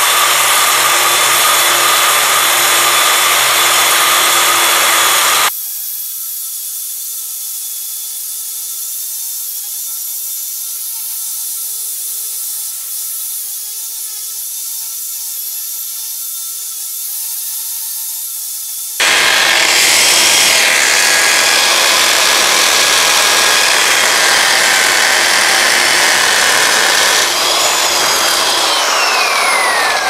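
ES산업 DC1004S dry core drill with a 65 mm dry diamond core bit cutting into a concrete curb stone, its motor running under load with the grinding of the bit against the stone. From about five seconds in to about nineteen seconds it drops abruptly to a much quieter, thin steady whine, then returns loud. Near the end comes a falling whine as the motor spins down.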